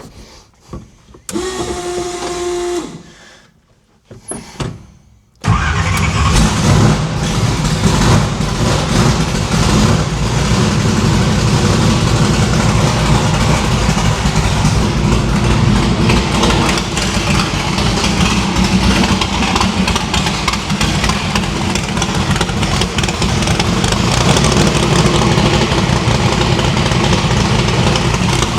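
A brief whine about a second in. About five seconds in, a small-block Chevy V8 fires up and runs loud and steady. It is firing on all eight cylinders now that all eight plug wires are connected, and it sounds much better than when it was running on only four.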